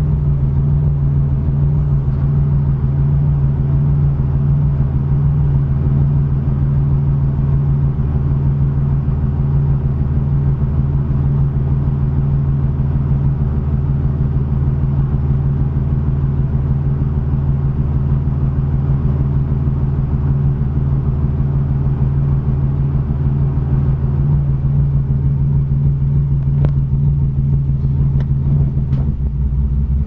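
1987 Chevrolet Cavalier RS's 2.8-litre V6 idling roughly, with a steady engine note and a deeper rumble coming in about a second before the end. The rough idle has not smoothed out after the owner replaced many parts.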